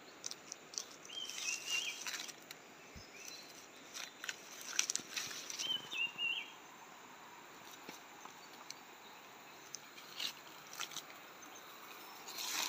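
Footsteps crackling and rustling through dry leaf litter and twigs on a forest floor, in irregular light crunches. A bird gives a short chirping call twice, about a second in and again about six seconds in.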